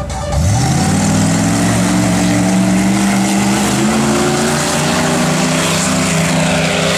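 Jeep Grand Cherokee off-road race car's engine revving up sharply about half a second in, then held at high revs under hard acceleration, its pitch climbing slowly.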